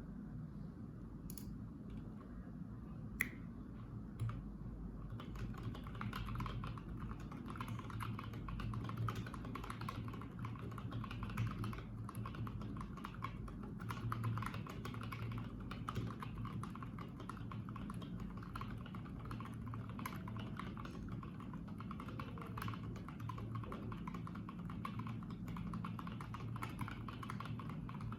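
Redox split mechanical keyboard with Gateron Yellow linear switches on a stainless steel plate, being typed on. A few separate clicks come first, then fast, continuous typing from about five seconds in, over a low steady hum.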